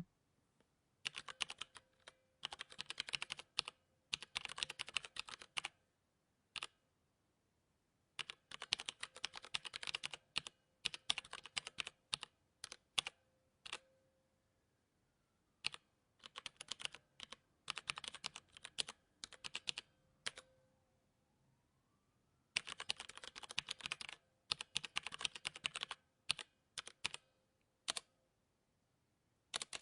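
Typing on a mechanical keyboard: rapid runs of sharp key clicks in bursts of a few seconds, broken by short pauses and a few single keystrokes.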